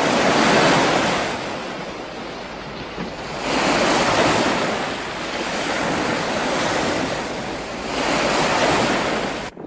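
Strong storm wind rushing in gusts, swelling and easing about three times before cutting off abruptly near the end.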